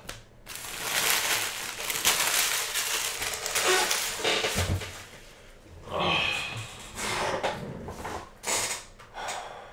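Foil trading-card pack wrappers crinkling and rustling as they are gathered off the table for several seconds, then a few shorter bursts of handling rustle.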